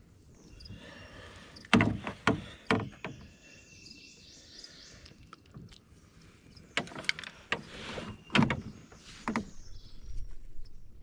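Sharp knocks and bumps in a small boat while a small sunfish is handled and unhooked, in two clusters: about two seconds in and again around seven to nine seconds.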